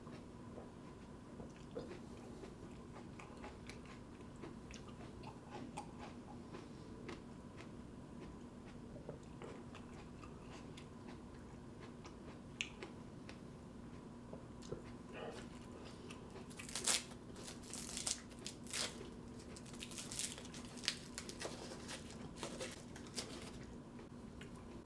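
A mouthful of raw tomatillo being chewed, with faint soft clicks, then a run of louder, sharp crackles about two-thirds of the way in.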